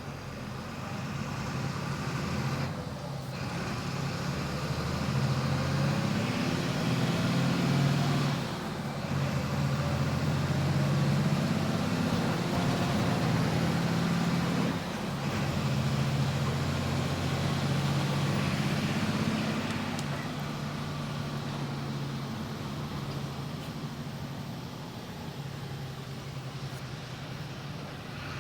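Volkswagen 17.230 EOD bus's diesel engine running at high revs as the bus drives, the engine note climbing, with three brief drops in the first half, then running steadier and a little quieter.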